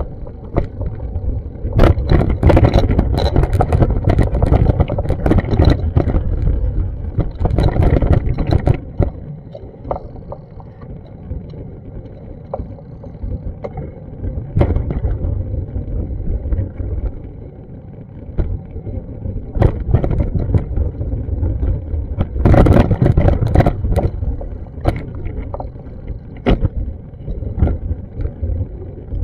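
Wind buffeting the action camera's microphone: a loud low rumble that comes in gusts, strongest in a long gust near the start and a shorter one about two-thirds of the way in.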